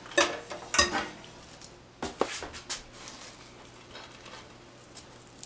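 A metal loaf pan knocking against a wire cooling rack as a baked loaf is turned out onto it: two sharp knocks in the first second, then a few softer knocks and bumps about two to three seconds in, fading to light handling.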